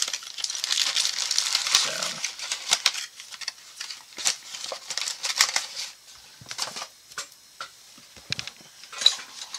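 Plastic parts bags and packaging crinkling, with small clicks and knocks as boxed rifle parts are handled. The crinkling is busiest in the first three seconds, then thins to scattered clicks.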